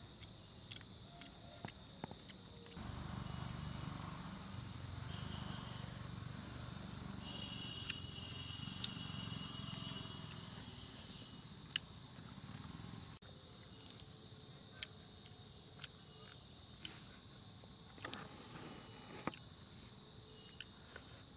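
Night insects trilling steadily in a high, pulsing chorus, with scattered small clicks as fingers pick fish from a banana leaf. A low rumble rises about three seconds in and fades out around thirteen seconds.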